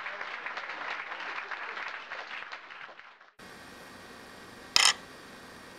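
Dense crackling noise full of small clicks, which cuts off abruptly a little over three seconds in. A faint steady hiss follows, and about five seconds in comes a single short, sharp clink as a silver ring is set down on a digital pocket scale.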